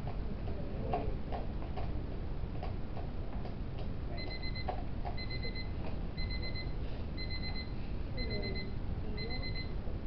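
Countdown timer alarm going off about four seconds in: short clusters of rapid high-pitched beeps repeating about once a second, signalling that the timed two-minute work period is up. Before it there are only faint scattered clicks over steady room noise.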